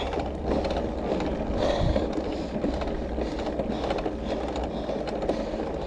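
A road bicycle being ridden on a climb: a steady rumble of tyres and drivetrain on the road, with scattered clicks.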